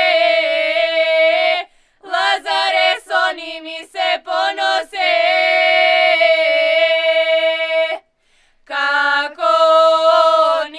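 A group of young women singing a Lazarus Saturday (lazarki) ritual folk song unaccompanied, in long held notes. The phrases break off in short pauses about two seconds and eight seconds in.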